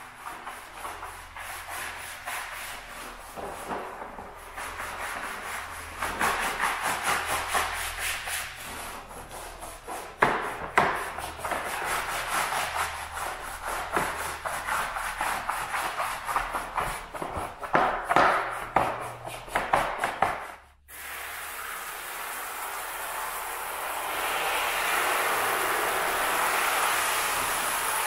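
A hand scrub brush scrubbing a soapy rubber car floor mat in quick, uneven back-and-forth strokes. About 21 seconds in, the scrubbing stops and a steady hiss of water spraying from a hose nozzle takes over as the mat is rinsed, growing louder a few seconds later.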